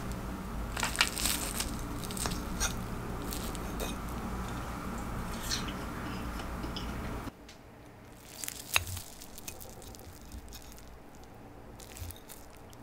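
Metal cutlery working a soft potato-chip omelette on a ceramic plate: scattered light clicks of metal on the plate and soft squishes as the fork presses through the egg. A low background hum under the first half drops away about seven seconds in.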